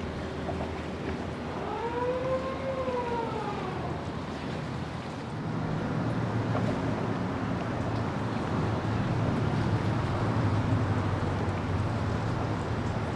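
Warning siren on a railroad bascule bridge wailing once, rising and then falling in pitch, as the bridge lowers. From about five seconds in, a low steady hum takes over and the overall sound grows louder.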